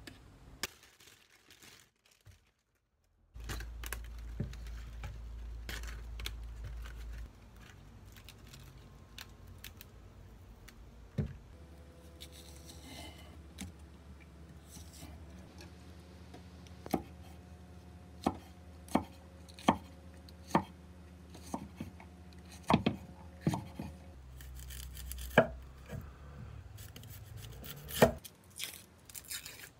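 Large kitchen knife chopping vegetables (green onion, then an onion) on a wooden cutting board: sharp knocks of the blade against the board, coming in a run of evenly spaced strokes a little under a second apart in the second half.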